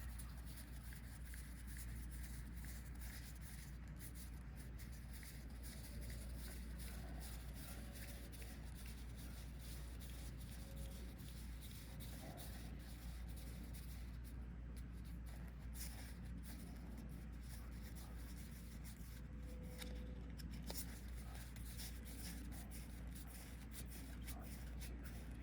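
Collectible playing cards being handled and counted one at a time: faint, frequent soft slides and ticks of card stock over a steady low electrical hum.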